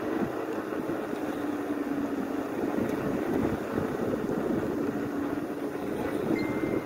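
Steady riding noise of an e-bike rolling along a paved street: tyres and moving air, with a faint steady tone underneath.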